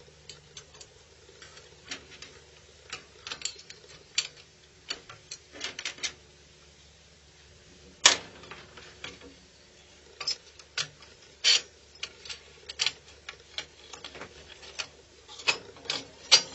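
Irregular light clicks and knocks of a circuit board and its metal holder being handled and fitted together, with one sharper knock about halfway through and a quicker cluster near the end.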